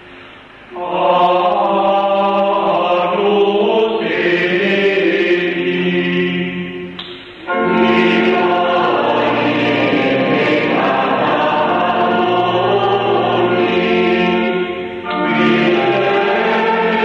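A men's schola choir singing liturgical chant in phrases. It starts about a second in and pauses briefly for breath about seven seconds in and again near fifteen seconds.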